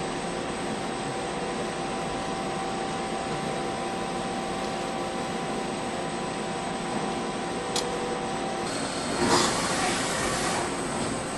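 CNC machine running: a steady mechanical hum with several held tones, a sharp click near eight seconds in, then a louder hiss for about two seconds.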